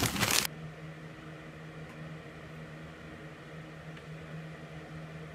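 A loud burst of noise that cuts off abruptly about half a second in, then a steady low hum.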